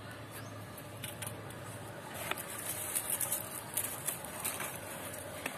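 Rustling and light crackling of dry tomato leaves and stems as a hand reaches through the plant to pick fruit, with small irregular clicks from about two seconds in.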